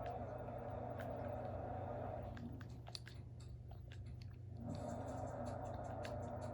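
A puppy chewing: irregular soft clicks and smacks over a steady background hum.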